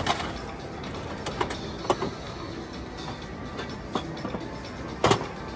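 Gashapon capsule-toy vending machine being worked by hand: its crank dial is turned with a series of separate clicks, and there is a louder clack about five seconds in as the capsule is taken from the dispensing chute.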